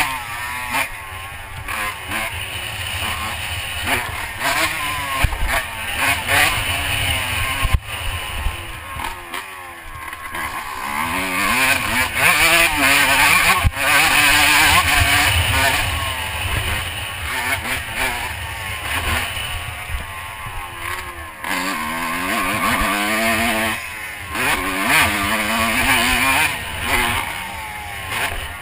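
Honda CR125 two-stroke single-cylinder dirt bike engine revving up and dropping off again and again as it is ridden around a motocross track, loudest about halfway through.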